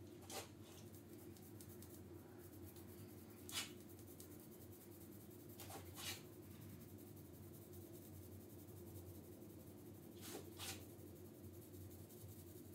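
Faint, near-silent room hum broken by a handful of short scratchy strokes a few seconds apart: a small paint roller being worked along a workbench backstop.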